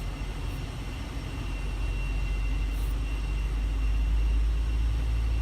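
Pushback tug's engine running, heard from inside the cab: a low, steady rumble that grows gradually louder, with a thin, steady high whine above it.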